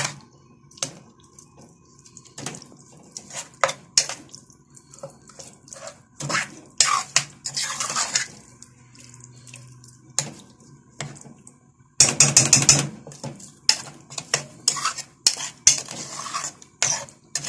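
Spiced chicken pieces being stirred and turned in oil in a stainless steel pot: repeated clinks and knocks against the metal with rustling scrapes, the busiest and loudest stretch a little past the middle.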